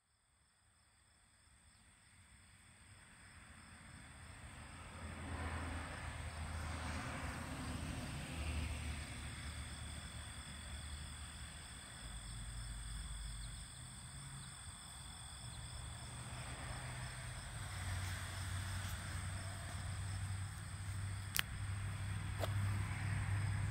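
Outdoor summer ambience fading in: insects chirring steadily at a high pitch over a low rumble, with a single sharp click near the end.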